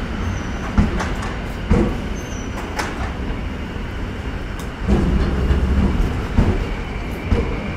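Railway station ambience: a steady low rumble of a train, with a few scattered knocks and clicks in the first three seconds. The rumble swells about five seconds in.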